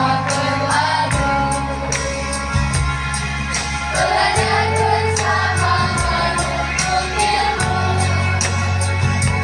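Children's choir singing over instrumental accompaniment with sustained bass notes and a steady beat.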